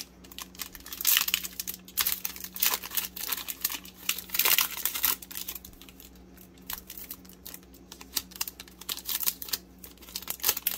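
Foil wrapper of a 2020 Donruss Optic football trading-card pack crinkling and being torn open by hand, in several bursts of crackling with sharp clicks, loudest about a second in and again around four to five seconds in.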